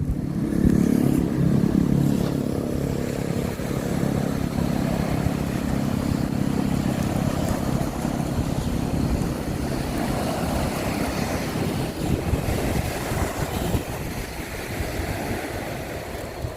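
An engine running steadily over a constant rushing noise, its hum strongest for the first eight seconds or so and then weaker.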